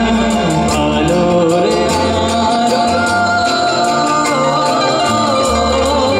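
Male vocalist singing a Bengali song live into a handheld microphone, backed by a band with bass and a steady drum beat.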